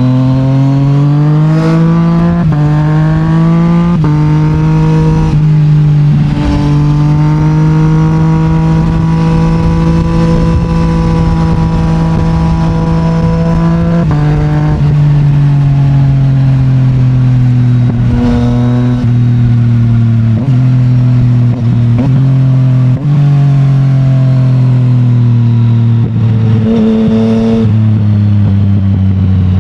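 Yamaha MT-09's 890 cc three-cylinder engine through an Akrapovic titanium exhaust, accelerating hard up through the gears with quick upshifts in the first few seconds. It then holds a steady cruise and slows down with several short downshift blips, dropping to low revs near the end.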